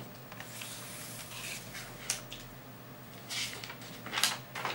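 Paper rustling as a squared-paper notebook is handled and its page turned: a few short brushes of paper, the loudest about four seconds in.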